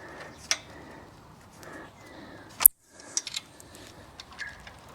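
Scattered clicks and light metallic handling of small hand tools at the stator wiring plug. A sharp click comes about two and a half seconds in, followed by a brief dropout to silence.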